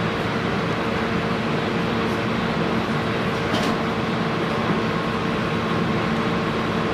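Cabin noise of a JR East 719 series electric train, a steady rumble with a constant hum and a few faint clicks. This unit's motors have an unusual sound.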